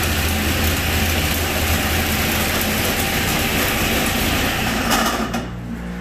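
Rebuilt 1969 Corvette race V8 running loud and steady under load on an engine dynamometer. The sound drops off about five and a half seconds in as the throttle comes off at the end of the pull.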